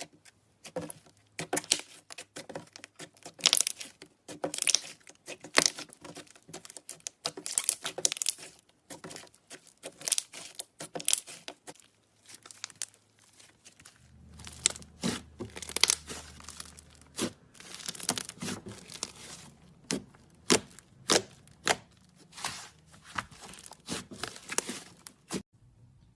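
Slime being pressed and pulled by hand, giving dense, irregular sticky crackles, pops and tearing sounds.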